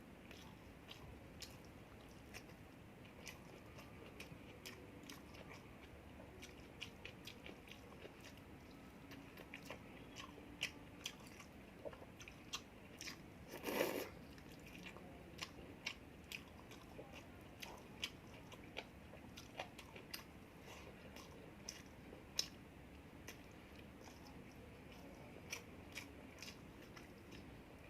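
Close-up chewing and biting of a person eating, with many small, sharp mouth clicks throughout and one louder burst about halfway through.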